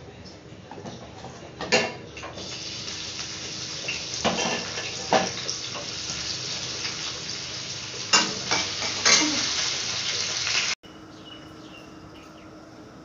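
Kitchen work: metal utensils and dishes clink and clatter several times over a steady hiss. The sound cuts off suddenly near the end, leaving a quieter room with a faint low hum.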